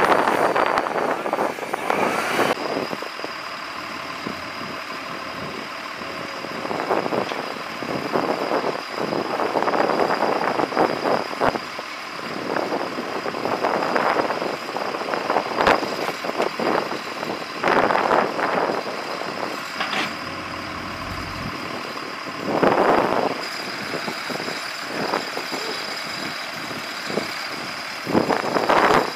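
Heavy construction equipment engine running at a work site, with irregular short bursts of noise from shovel and fill work. A backpack leaf blower is heard over the first two seconds, then cuts off suddenly.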